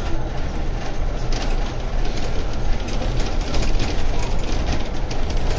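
Ride on the open upper deck of a moving double-decker sightseeing bus: a steady, loud rumble of the bus and traffic, with wind buffeting the microphone.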